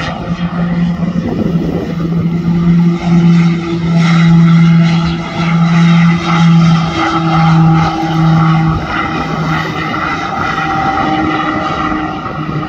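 Piaggio P.180 Avanti's twin pusher turboprops running on the runway: a low propeller drone that wavers in and out, with a higher whine above it, loudest in the middle few seconds and fading toward the end.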